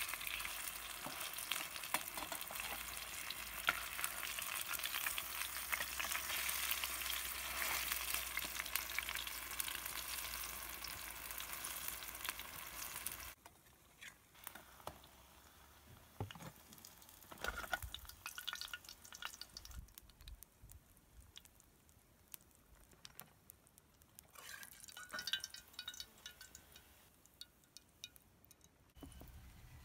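Wheat fritters sizzling in hot oil in a small metal frying pan, a dense, even crackle. About 13 seconds in the loud sizzle stops suddenly and gives way to a much fainter sizzle, with scattered clicks and scrapes of a metal spatula against the pan as the fritters are turned and lifted out.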